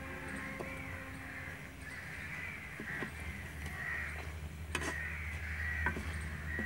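Crows cawing over and over, with a few sharp clinks of a steel slotted ladle against an iron karahi, the loudest one nearly five seconds in.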